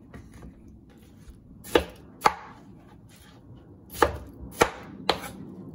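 Kitchen knife chopping watermelon on a bamboo cutting board: five sharp knocks of the blade hitting the board, two a half-second apart about two seconds in, then three more, half a second apart, in the last two seconds.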